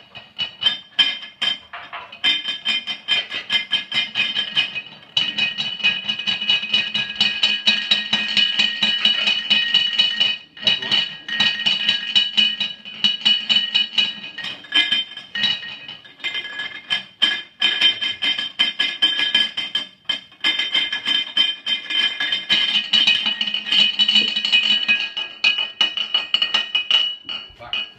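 Ceramic teapot lids and dishes chattering in a rapid, continuous clinking as dry-ice vapour escapes from them, over a steady high ringing tone. It breaks off briefly a few times.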